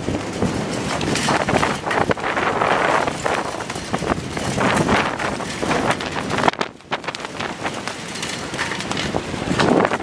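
Strong wind, about 25 knots, buffeting the microphone aboard a sailboat under sail, over the rush of the choppy sea. The gusting noise dips briefly about two-thirds of the way through.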